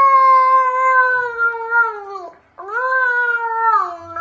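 A cat yowling: two long, drawn-out calls, the second starting about half a second after the first ends, each dropping in pitch as it trails off.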